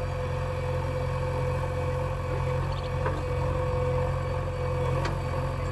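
JCB backhoe loader's diesel engine running steadily as the backhoe arm works, with a steady whine over the engine hum. Two short clanks come about three and five seconds in.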